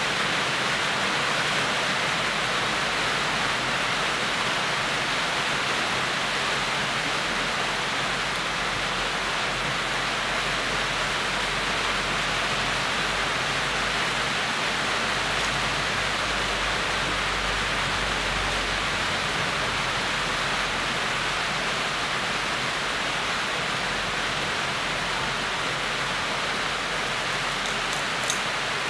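A steady, even hiss with one faint click near the end.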